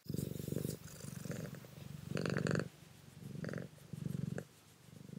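A domestic cat purring, in pulsing bursts that swell and fade with each breath, loudest about two seconds in.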